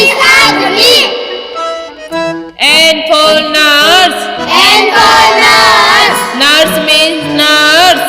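Children's song: a sung voice over backing music, with a short stretch of instrumental backing alone about one to two and a half seconds in.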